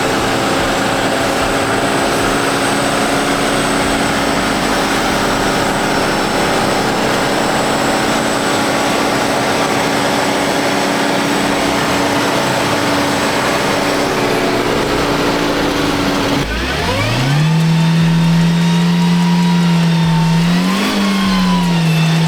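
Off-road vehicle engine held at high revs, its pitch steady for about sixteen seconds. Then the tone drops away and the revs climb quickly again and hold high, with two short surges near the end.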